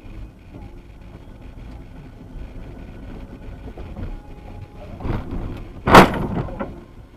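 Steady vehicle noise, then a sudden loud crash about six seconds in, typical of a car collision, with a lesser noisy swell a second before it.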